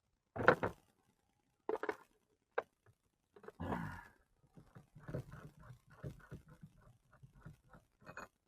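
A man sighing and breathing hard while working, followed by a run of small clicks and taps of parts being handled and fitted.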